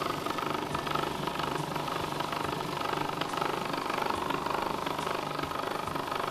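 Electric food processor motor running steadily, blending pumpkin into a purée.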